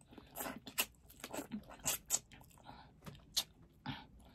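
Close-up eating of king crab leg meat: biting and wet chewing with a string of sharp lip-smacking clicks.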